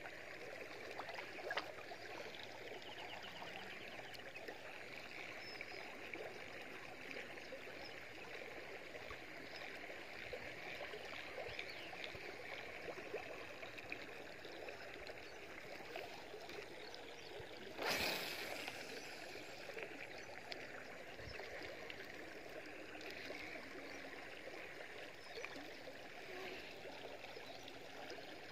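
Soft, steady river ambience of moving water, with one short loud rush of noise about eighteen seconds in.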